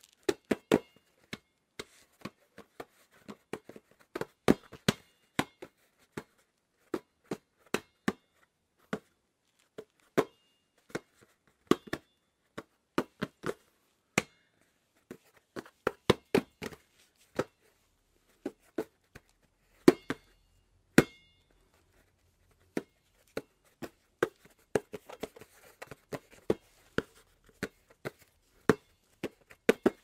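Hands slapping, catching and handling a basketball: a long run of sharp, irregular pats and smacks of palms on the ball, a few with a short ring. Late on there is a denser flurry of quick touches.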